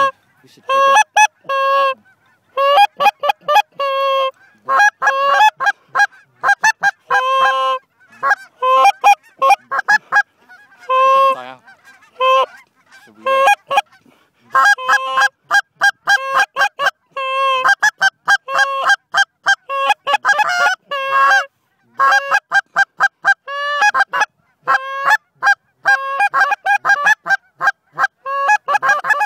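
Hand-blown Canada goose call worked in quick runs of honks and clucks, loud and close, with brief pauses between runs, imitating a flock of honkers to draw geese in.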